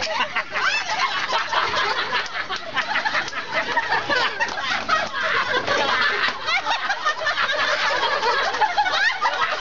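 A crowd of children and onlookers laughing, shrieking and chattering all at once, with many voices overlapping.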